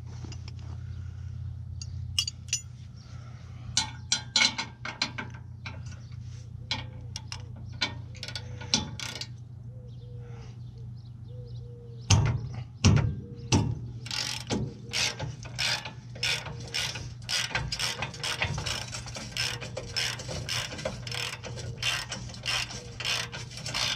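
Hand ratchet wrench clicking as a bolt is turned under the front end of a 2000 Toyota 4Runner: scattered clicks at first, a couple of heavier knocks about halfway through, then a fast, even run of clicks, about three a second.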